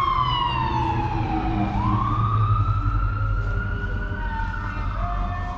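A wailing siren whose pitch slides slowly down, climbs back up over a couple of seconds, then starts falling again near the end, over a steady low rumble.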